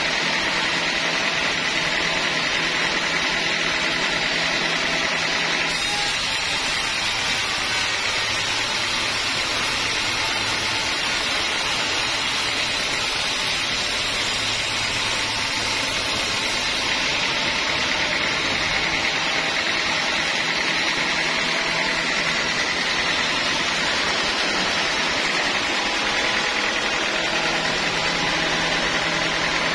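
Band sawmill running steadily, its band-saw blade ripping lengthwise through a teak log, a constant motor hum under a sawing whine and hiss. The high hiss is strongest from about six to seventeen seconds in.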